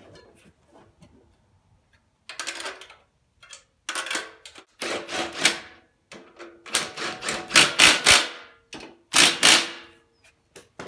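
Ratchet wrench clicking in short strokes as a bolt on a Briggs & Stratton engine is worked, starting about two seconds in and coming quicker toward the end.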